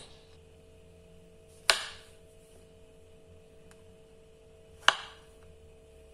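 Kitchen knife cutting through a softened boiled avocado pit and knocking on a wooden cutting board: two sharp knocks about three seconds apart, with a faint tick between them.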